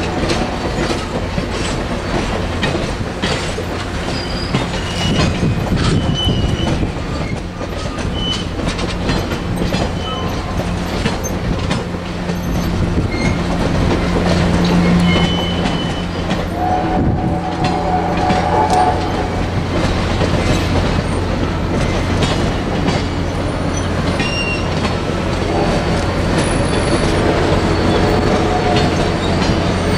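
Steel-wheeled passenger cars rolling past at steady speed, with a continuous rumble and wheels clicking over rail joints. Short high-pitched wheel squeals come and go throughout.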